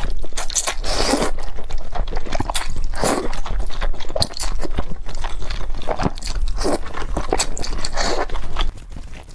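Wide flat noodles in chili sauce being slurped and chewed: a loud wet slurp every second or two, with sticky chewing clicks in between. It turns quieter near the end.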